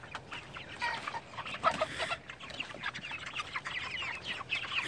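A flock of young broiler chickens peeping and clucking, with many short calls overlapping and growing busier toward the end. The birds are calling as if ready to be fed.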